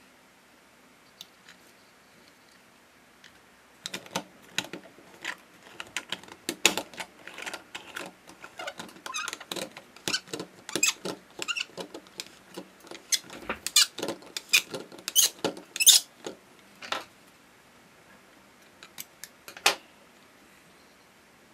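Plastic toy noodle press creaking and squeaking as its plunger is forced down to push clay out as noodles: an irregular run of clicks and squeals starting about four seconds in, loudest near the end of the run, then two last clicks. The squeal is a fault of the tool, which the maker thinks oiling might cure.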